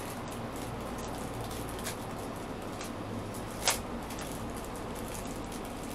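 Small handling sounds of an enamel pin and its packaging being fiddled with in the hands: a few light clicks and one sharper click a little past halfway, over a steady hiss.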